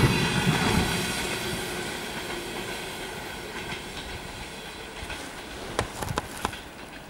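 Double-decker passenger train running away down the line just after passing, its wheel and rail noise fading steadily. A few sharp clicks come near the end.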